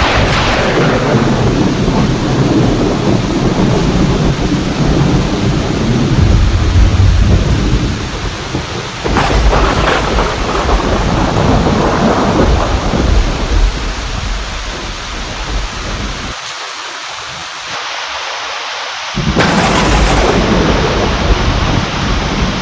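Heavy rain with thunder: sharp thunderclaps at the start, about nine seconds in and near the end, each trailing off into long low rumbles over a steady hiss of rain.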